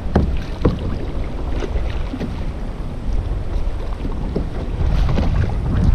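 Wind buffeting the microphone over water splashing and slapping around a kayak being paddled through choppy sea, with short irregular splashes.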